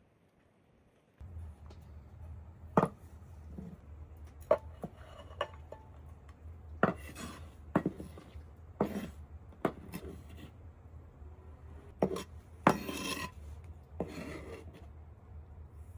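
Irregular sharp knocks and clinks of objects being handled, over a steady low hum that starts about a second in.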